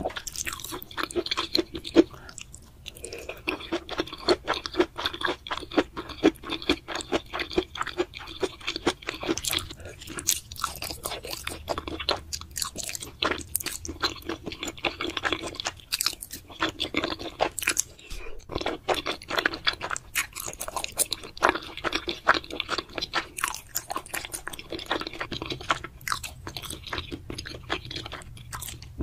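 Close-miked chewing and slurping of wide, sauce-coated glass noodles, with a dense run of wet, crunchy mouth clicks.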